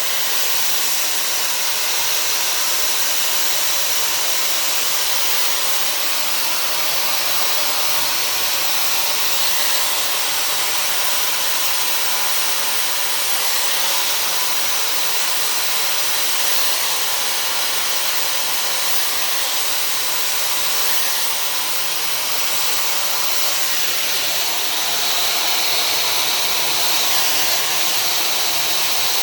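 Dyson Supersonic hair dryer with a diffuser attachment running continuously, a steady airy rush of blown air with a faint whine under it.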